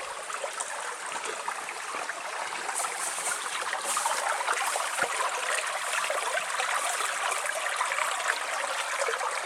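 A strong mountain spring gushing out from under the creek bank into a pool, with the steady splashing and burbling of running water. It gets a little louder about four seconds in.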